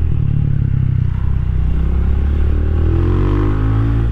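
Rusi Classic 250's LX166FMM single-cylinder four-stroke engine pulling under way, its note climbing steadily in pitch through the second half as the bike accelerates.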